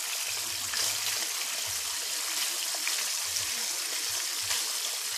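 Pork chop frying in hot oil in an electric skillet: a steady sizzle with a few small crackles of spattering grease.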